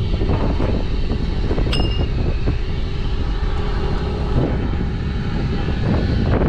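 Steady low rumble of a running engine, with a brief high metallic ring a little under two seconds in.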